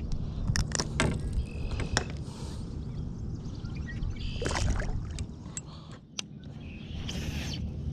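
Handling sounds in a plastic kayak as a small bass is unhooked and let go: scattered knocks and clicks of rod and gear against the hull, and a short splashy burst about halfway through, over a steady low rumble.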